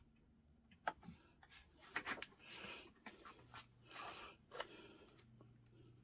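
Faint handling sounds of a plastic bucket being set down on a kitchen scale: a few light knocks and short rustles, with a faint low hum from about halfway through.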